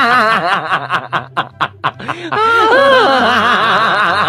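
A person laughing: a run of quick short bursts, then longer laughs that rise and fall in pitch.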